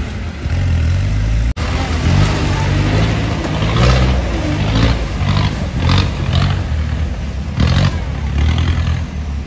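Off-road 4x4 engine revving hard again and again, rising and falling in pitch, as it claws up a steep dirt slope with its tyres spinning and throwing dirt. A brief dropout about one and a half seconds in.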